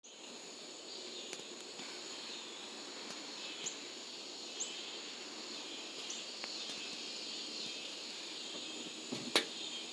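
Cicadas buzzing in a steady, high, continuous drone. A few short rising bird chirps come through, and there is one sharp click just before the end.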